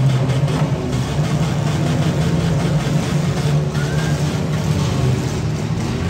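Engines of several compact demolition-derby cars running together in a loud, steady low drone.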